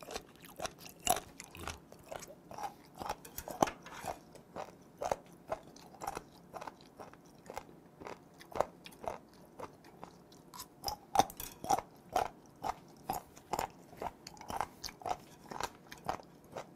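Close-miked chewing of sliced horned turban sea snail meat: irregular short, clicky bites and mouth sounds, about two a second.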